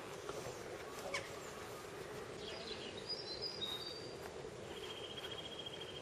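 Faint outdoor ambience with a steady low background hum. Small birds give a few short high chirps about halfway through, and a rapid high trill runs for about a second near the end.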